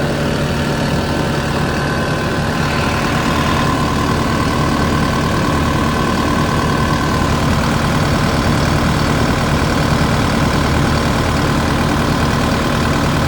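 Kubota SVL95-2S track loader's four-cylinder turbo diesel engine running steadily at idle. It runs smoothly, with no knocking or bad-injector noise.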